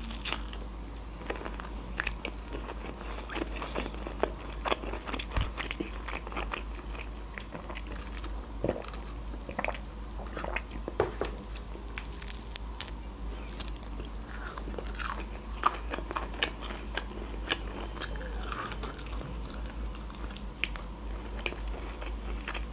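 A person chewing and biting crispy breaded fried chicken strips: irregular crisp crunches and wet mouth clicks.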